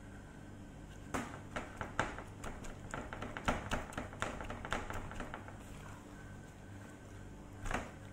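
Plastic-gloved hand rubbing oil into raw, flattened chicken on a metal baking tray: a quick run of wet slaps and plastic crinkles from about one to five and a half seconds in, and one more near the end.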